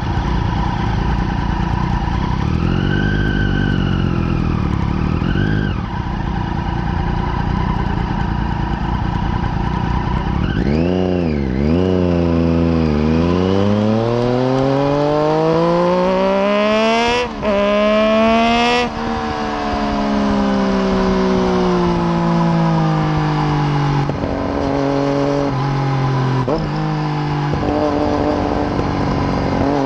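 Triumph Daytona 675's three-cylinder engine through an unbaffled Arrow exhaust, heard onboard: steady running with a couple of small revs, then hard acceleration with the pitch climbing and two quick upshifts with brief cuts. It then slows with falling pitch and stepped downshifts, and picks up again near the end.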